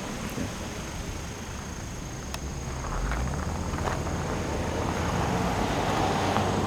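Low, steady rumble of a distant engine, growing louder about three seconds in.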